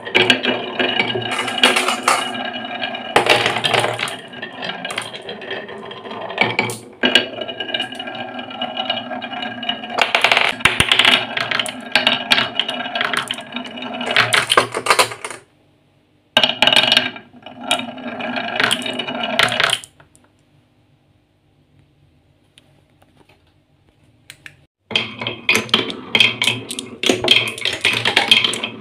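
Glass marbles rolling and rattling down wooden marble-run tracks, clacking against the wood and each other and dropping into a wooden catch tray. The rattling stops briefly about fifteen seconds in and falls to near silence for about five seconds from around twenty seconds, then starts again as a marble rolls around a wooden funnel bowl.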